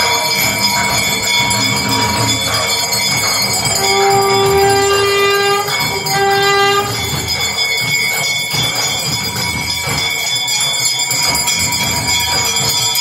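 Brass temple bells and a hand bell ringing and clanging continuously during an aarti. About four seconds in, a held pitched note sounds for nearly two seconds, then again briefly.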